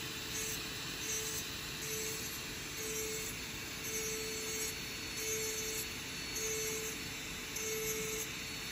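Dental lab micromotor handpiece running at high speed, its bur grinding a milled zirconia disc; a steady whine with a tone that swells and fades about once a second as the cut goes on.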